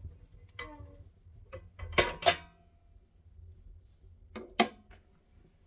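Wood fire crackling: a handful of sharp, irregular pops and cracks, the loudest about two seconds in and again near the end, a few with a brief ring.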